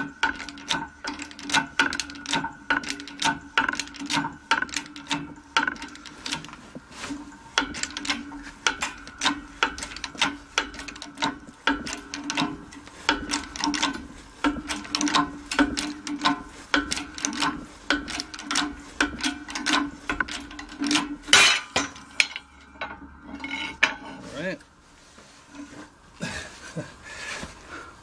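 Hydraulic shop press forcing a worn rubber bushing out of a Honda Civic rear lower control arm: a rapid run of metallic clicks and clinks over a steady hum. About three-quarters of the way through a single louder crack comes as the bushing gives way, and then the hum stops and the clicking thins out.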